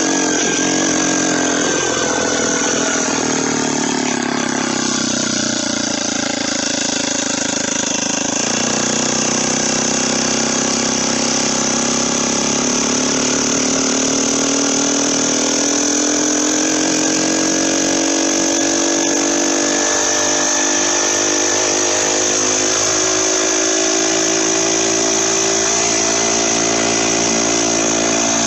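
Turbocharged motorized bicycle engine running under way. The revs drop over the first few seconds, then climb again and hold high, with a steady high whine throughout.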